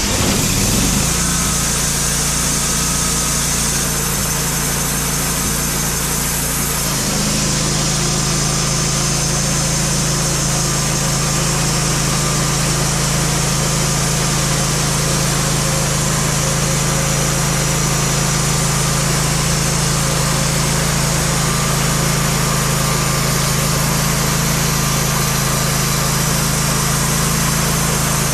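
Band sawmill's gas engine running steadily just after starting; about seven seconds in its tone steps up slightly and strengthens, then holds steady as the blade saws through a black oak log.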